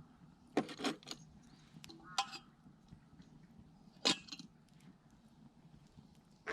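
A few sharp clinks and knocks of objects being handled: a cluster about half a second in, then single ones at about two and four seconds. Short chirps like a bird's are heard at about two seconds.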